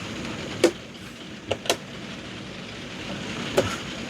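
Four short, sharp clicks and taps: hands handling the small plastic parts of an RC crawler. A steady low hum runs beneath them.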